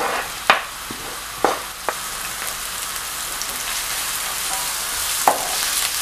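Chopped onions sizzling in hot oil in a nonstick kadai as they are stirred with a wooden spoon, a steady frying hiss. Four sharp knocks of the utensils against the pan, three in the first two seconds and one near the end.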